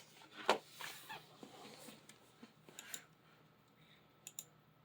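A few short, sharp clicks and taps, the loudest about half a second in, then scattered ones near the middle and near the end.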